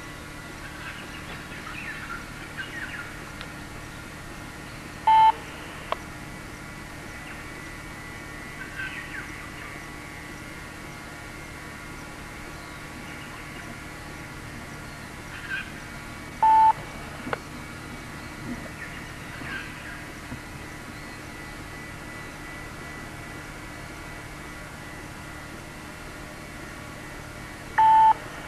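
Three short, loud electronic beeps at one pitch, evenly spaced about eleven seconds apart, over a steady low hum. Faint bird chirps sound now and then between them.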